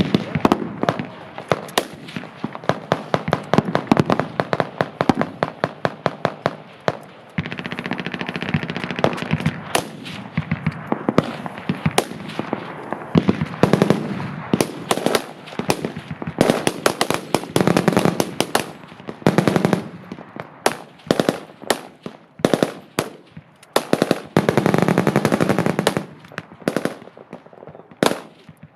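Machine guns firing, with overlapping bursts and shots throughout and echoing off the range. Two long stretches of very rapid continuous fire stand out, one about a third of the way in and one near the end.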